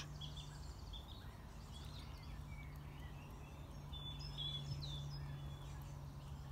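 Faint outdoor birdsong, scattered short chirps and whistles, over a low background rumble with a steady low hum.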